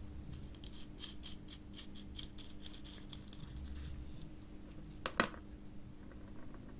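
Small metal parts clinking and tapping as a soldering iron's tip is swapped for a flatter one, with one sharper clink about five seconds in.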